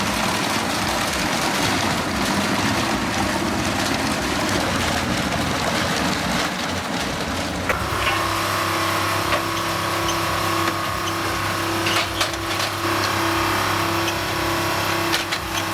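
Heavy machinery running: a rough, noisy clatter that changes abruptly about halfway through to a steady engine drone with a held hum, and a few sharp knocks near the end.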